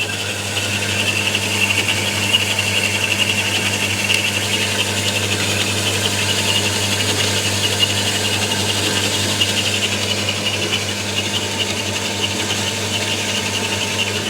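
Optimum S275 NV metal bandsaw running, its blade cutting through stock under hydraulic downfeed: a steady low motor hum beneath a steady high hiss of the blade teeth.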